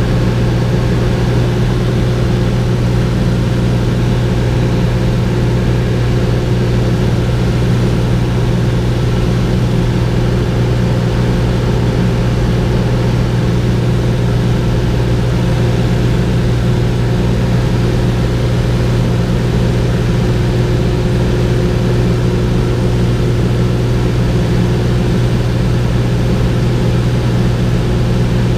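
Cessna 210's six-cylinder piston engine and propeller droning steadily in cruise flight, heard from inside the cabin: a constant low hum with no change in pitch.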